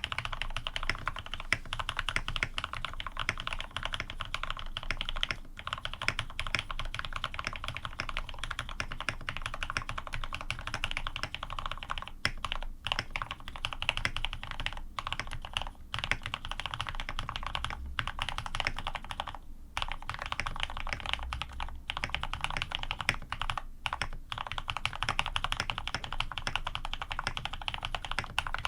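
Fast, continuous typing on an AR87 tenkeyless mechanical keyboard with PBT keycaps, an aluminium plate and lubed linear switches (Cherry retooled black housings with cream stems, TX 70 g springs), with a few brief pauses.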